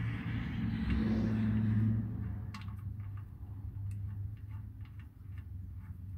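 A hiss for about two seconds, then a hand ratchet clicking about three times a second as the oil drain plug is run back into the oil pan. A steady low hum runs underneath.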